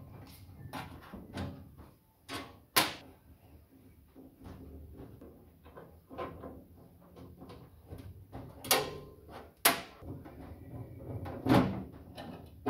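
Irregular knocks and clunks from a large air filtration unit's casing and its packing as they are handled and shifted. A few sharp, loud knocks stand out, about three seconds in and again around nine to twelve seconds.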